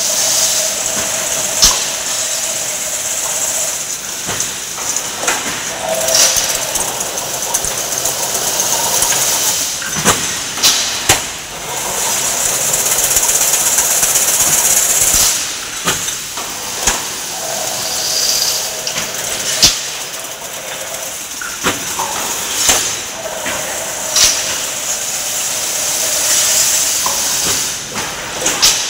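Chain-link fence weaving machine running: a steady hissing whir that swells and fades in cycles of a few seconds as wire is woven into diamond mesh. A sharp metallic clack comes about every four to five seconds.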